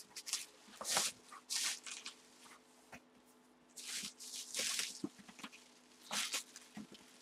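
Plastic bag and cardboard box packaging crinkling and rustling in several short bursts as a boxed full-size football helmet is unpacked by hand.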